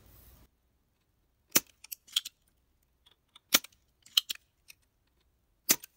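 Spring-loaded desoldering pump (solder sucker) firing as solder is sucked out of a capacitor hole in a circuit board. There are three sharp snaps about two seconds apart, with softer clicks between them.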